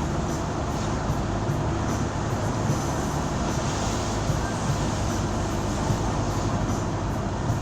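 Steady running noise of a moving road vehicle: road and engine noise with a constant low hum.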